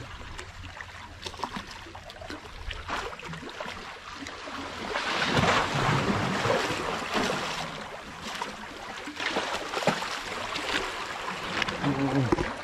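Water splashing and sloshing, swelling for a couple of seconds in the middle, with wind buffeting the microphone.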